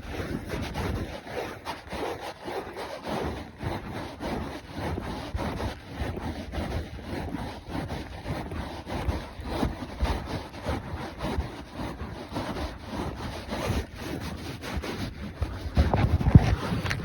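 Hoofbeats of a ridden horse: a continuous run of short thuds with wind on the microphone, louder near the end.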